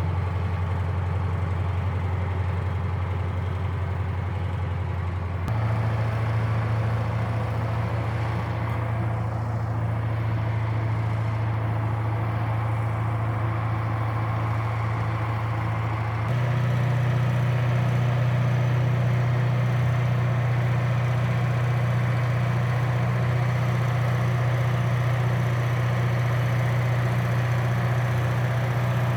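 An engine running steadily, its speed stepping up twice, about five seconds in and again about halfway through, a little louder each time.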